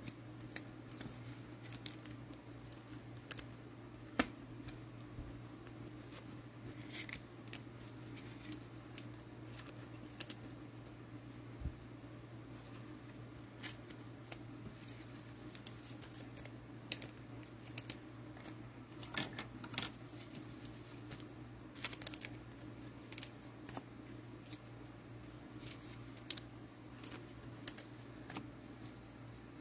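Trading cards and pack wrappers being handled: many small, irregular clicks and scrapes as cards are slid, shuffled and sorted, over a steady low electrical hum.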